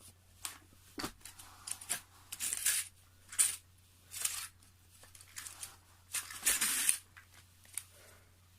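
A strip of paper being drawn through the pinion and spur gear of a nitro RC car as the car is rolled backwards: irregular crinkling and tearing rustles with small clicks, the gear teeth pressing their pattern into the paper. This is a gear-mesh check, and the owner judges the mesh a little too tight.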